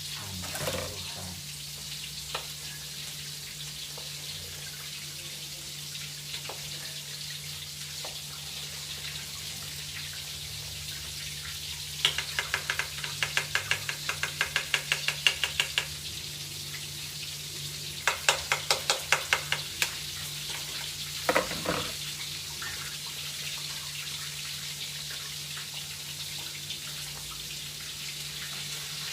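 Food frying in a pan with a steady sizzle. Two runs of rapid, even clicking come through, the first about four seconds long, the second about two.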